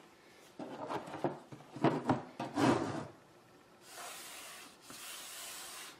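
Hands rubbing and scraping on a stretched painting canvas and its strip of masking tape: a few scuffs in the first half, then a steadier rubbing hiss in the last two seconds as the tape is pressed down. The pressing seals the tape's edge so the paint won't creep under it.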